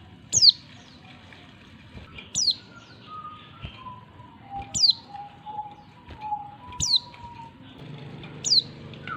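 Female oriental white-eye giving short, sharp, downward-sliding calls, five of them about two seconds apart: the call a female uses to attract males.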